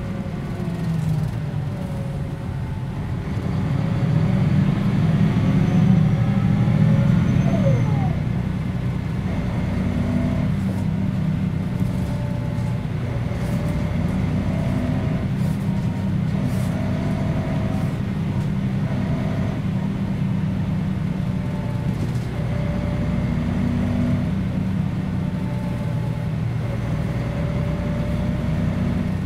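1994 Mercedes-Benz O 405 G articulated bus under way, its diesel engine running with a steady drone. It grows louder for a few seconds about four seconds in, with gliding whines above it, then runs on evenly.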